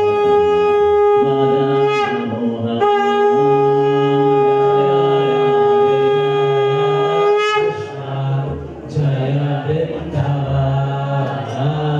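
Conch shell (shankha) blown in long steady notes of one unchanging pitch, the longest held about five seconds. It stops about eight seconds in, and a jumble of voices follows.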